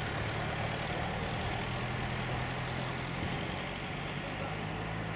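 Steady jet engine noise from a rear-engined regional jet moving along the runway: a low hum under an even rushing noise, with the hum's pitch shifting slightly partway through.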